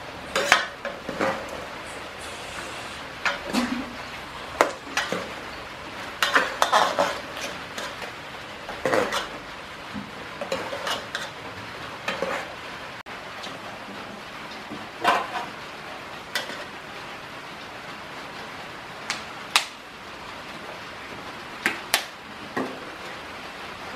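Metal ladle clinking and scraping against an aluminium cooking pot while stirring a pork stew, in irregular clusters of clatters, over a steady background hiss.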